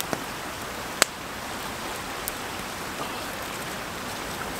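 Wood campfire crackling: a steady hiss with a few sharp pops from the burning sticks, the loudest about a second in.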